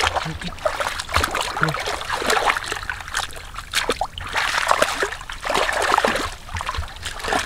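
Hands and feet splashing and squelching in shallow muddy water in irregular bursts, with wet sloshes and sucking slaps as the mud is groped through and scooped by hand.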